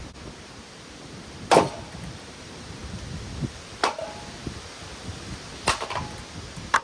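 A metal ceiling fan being smashed: four sharp impacts about two seconds apart, several leaving a brief ringing tone.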